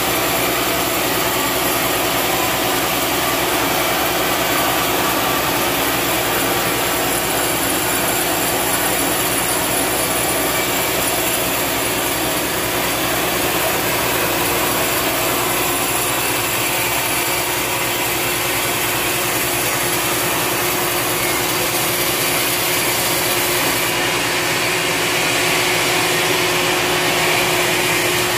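Sawmill band saw running steadily while cutting along a long, dry hardwood beam: a continuous high hiss and whine over a steady hum, a little louder near the end.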